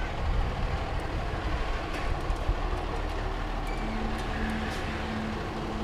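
Fire engine's diesel engine running with a steady low rumble as the truck pulls out of the station bay. A faint steady whine joins about four seconds in.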